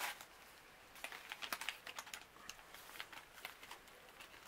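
Foil face-mask sachets being handled and shuffled: faint crinkling with irregular small clicks, busiest in the first couple of seconds.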